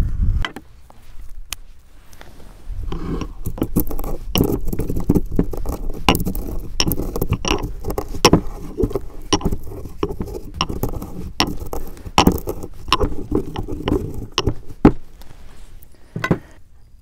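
Pestle pounding black peppercorns in a mortar: sharp knocks, a few scattered at first, then about two a second, stopping shortly before the end.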